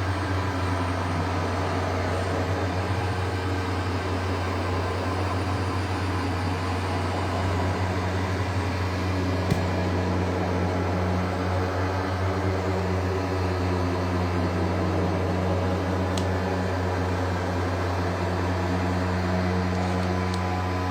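Make Noise Strega and XAOC Drezno modular synthesizer playing a steady, noisy drone: a low hum with overtones that slowly glide and shift above it. A brief click about nine and a half seconds in.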